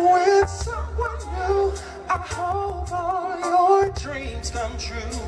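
A male R&B singer singing live into a handheld microphone, his voice sliding and wavering in pitch in held notes and runs, over a band with keyboards and a steady bass line.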